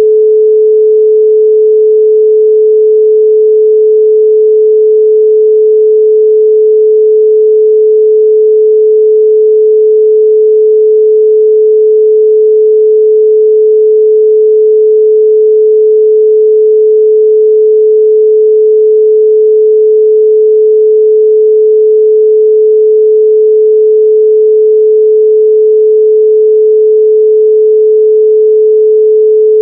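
A steady 432 Hz pure sine tone: one unchanging pitch with no overtones.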